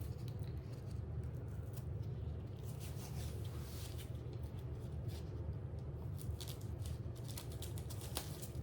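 Knife work on an onion on a cutting board: soft rustling and a few light taps, over a steady low hum.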